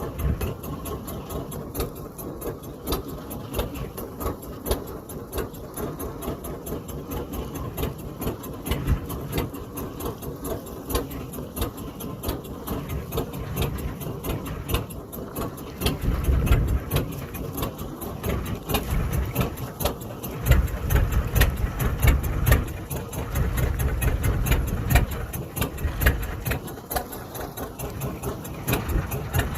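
Small fishing boat's engine running steadily with a fast, even chugging, and a deeper rumble swelling through the second half.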